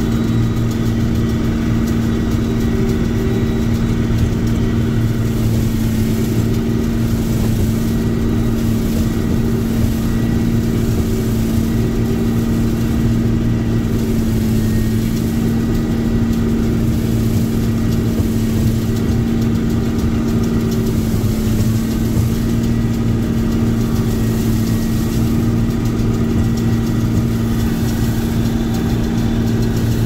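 Combine harvester running steadily while harvesting, a constant machine drone with a steady low hum that does not change in pitch or loudness.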